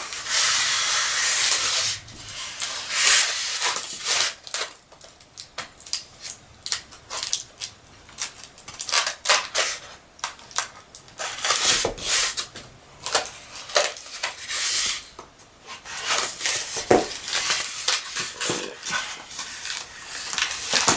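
Packaging being handled: rustling, scraping and crinkling in irregular short bursts, with a longer hissing rustle at the start, as a boxed model truck is unpacked.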